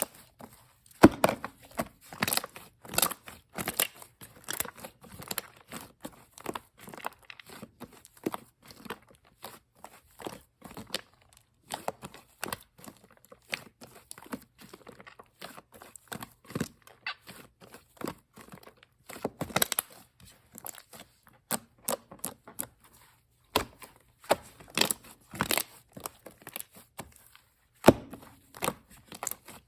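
Shaving-foam slime being squished, stretched and poked by hand, with an irregular run of small crackling pops and sticky snaps.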